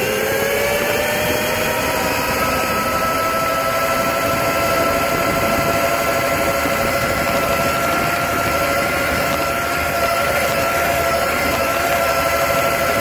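1800 W brushless electric motor and controller of a custom mini bike whining at full throttle. The whine rises in pitch until about a second in, then holds steady at top speed over a constant rush of wind and tyre noise.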